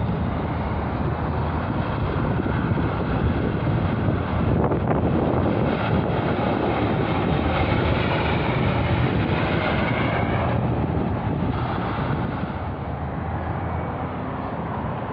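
Road traffic passing close by: the steady engine and tyre noise of semi trucks and cars, louder through the middle and easing off near the end.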